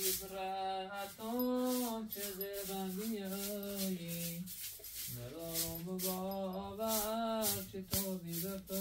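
Music: a voice singing a slow melody in long, bending held notes, over a steady rattling shaker-like beat.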